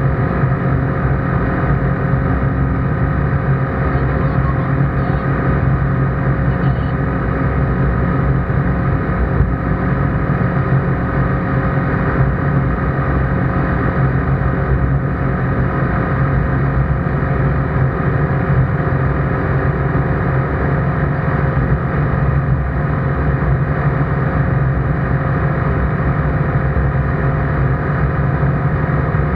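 ICP Bingo ultralight's engine and propeller droning steadily in flight, heard from inside the cockpit.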